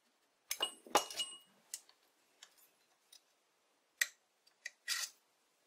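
Light metallic clicks and clinks as a steel rule is handled and set against the faced end of a test piece in a lathe chuck: a cluster of taps about half a second to a second and a half in, then single sharp clinks around four and five seconds in.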